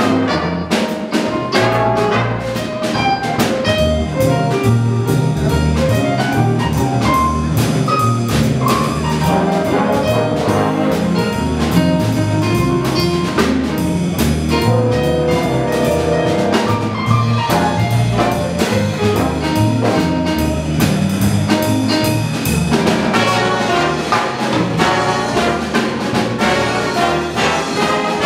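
Big band jazz played live: saxophones, trumpets and trombones over drums and bass, with steady cymbal strokes keeping time.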